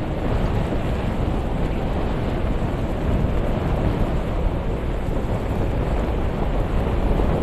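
Beach ambience: ocean surf with wind rumbling on the microphone, a steady noise without distinct breaks.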